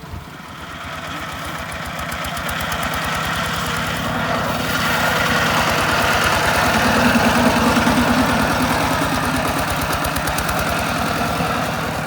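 Tractor engine running with an even knocking beat, growing louder over the first seven seconds or so, then easing slightly.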